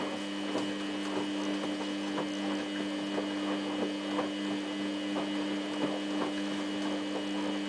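Samsung WF8804RPA front-loading washing machine running its main wash with a duvet in the drum: a steady electrical hum with faint, irregular soft ticks.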